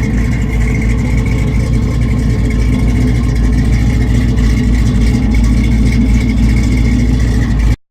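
A vehicle engine running steadily and loudly, cutting off abruptly near the end.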